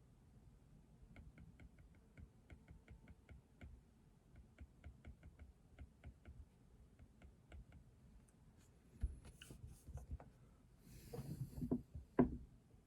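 Typing on a keyboard: runs of light, quick keystroke clicks. About two-thirds of the way in, a few louder knocks and a brief rustle follow, like things being handled on the desk.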